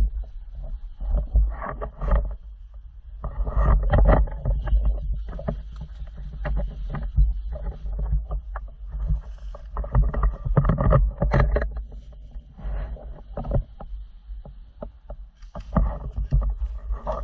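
Irregular footsteps and rustling through brush, over a steady low rumble of wind or handling noise on the body-worn microphone.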